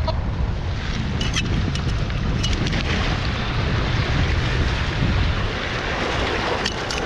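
Wind buffeting the microphone in a steady low rumble, with a few short sharp clicks about a second, two and a half seconds and nearly seven seconds in.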